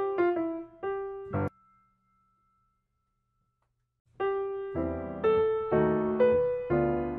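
Background piano music playing a simple melody of separate notes; it stops about a second and a half in, leaves nearly three seconds of silence, then starts again.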